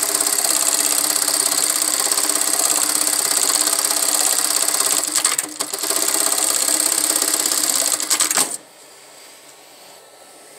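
THOR GT-1906-BH computerized pattern-sewing machine with a big hook, stitching a programmed pattern into 2-inch webbing at a fast, steady rate. It pauses briefly about five seconds in, sews on, and stops about eight and a half seconds in.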